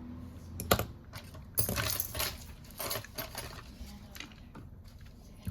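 Small hard objects clicking and clinking as they are handled on a repair bench. There is a sharp click about a second in, then a quick cluster of clicks, then a few more.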